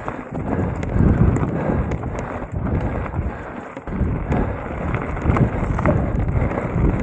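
Mountain bike rolling over a rough trail: tyre noise with irregular knocks and rattles over bumps, and wind buffeting the microphone. It eases off briefly a little past the middle.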